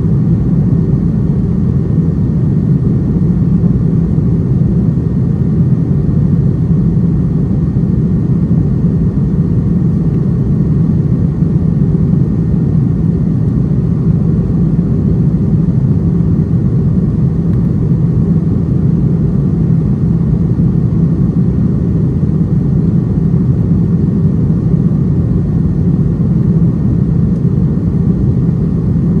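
Steady low roar of an Airbus A330-300's jet engines and rushing airflow, heard inside the passenger cabin in flight, unchanging throughout.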